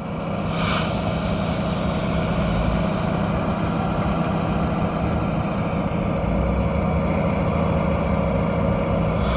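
Diesel engine of a Freightliner M2 concrete pump truck running steadily, growing louder over the first second and then holding even, with a short hiss under a second in.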